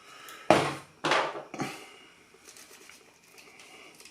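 Aerosol can of spray lubricant giving three short hissing spurts within the first two seconds, the first the loudest, as lubricant goes into the ends of a pocket knife.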